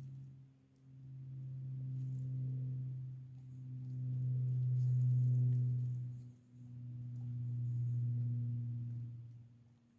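Low electrical hum from a brush-plating power supply during nickel plating. It swells and fades in three long stretches, breaking off briefly between them as the wired plating pen is worked over the clipped copper piece.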